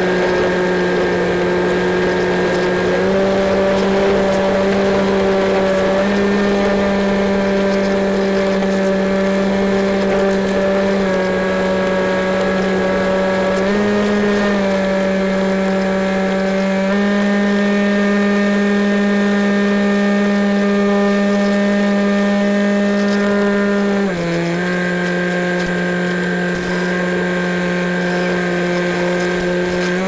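Electric motor and pusher propeller of an EasyStar RC plane running steadily in flight. Its droning pitch steps up and down a little several times as the throttle is changed.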